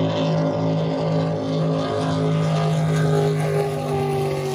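Engines of two jet drag boats racing across the river at speed, a loud steady drone.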